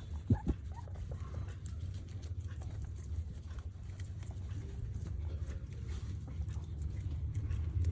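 Guinea pig chewing: a run of small crisp clicks over a steady low rumble, with two sharp knocks just after the start.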